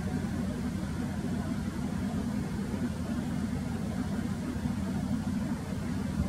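Steady low rumble of an idling engine, even in level throughout.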